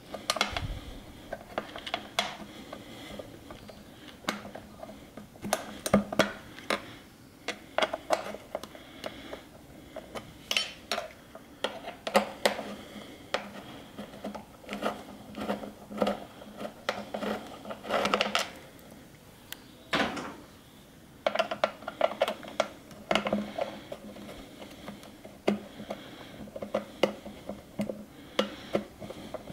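Metal hand tool work on a motorcycle's air cleaner cover: a hex key turning in the cover bolts and tapping against metal, giving irregular clicks, clinks and scrapes.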